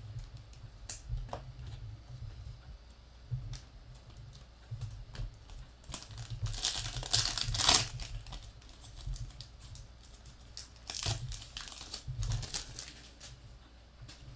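Foil wrapper of a Panini Mosaic football card pack crinkling and tearing as it is opened by hand. The loudest crinkling comes about six to eight seconds in, with shorter bursts around eleven and twelve seconds, and small clicks of cards being handled in between.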